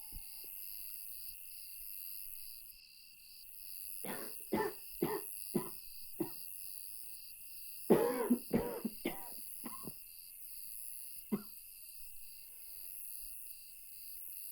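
A person's barking cough in fits: about five short coughs in quick succession a few seconds in, another burst of about five shortly after, then a single cough.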